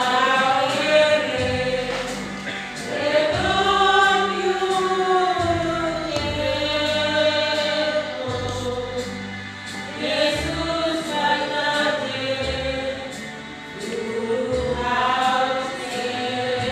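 Church choir singing a hymn in the Kayu Batu language, in long held phrases of a few seconds each, with steady low notes beneath.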